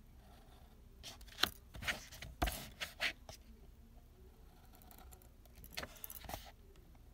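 Marker pen drawing on sketchbook paper: short scratchy strokes and tip taps, a cluster of sharp clicks and scrapes between about one and three seconds in and two more near the end.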